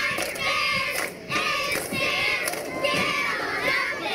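Football crowd shouting and cheering during a play, with several high-pitched voices calling out over one another and a brief lull about a second in.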